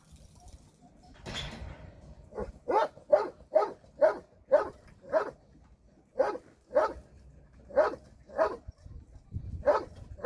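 A dog barking in quick runs of short barks, about two or three a second, with brief pauses between the runs.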